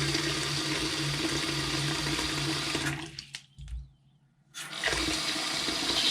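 Water running from a freshly repaired Delta two-handle faucet into the sink, left on to flush debris out after new seats and springs were fitted. The steady rush drops away about three seconds in and comes back about a second and a half later.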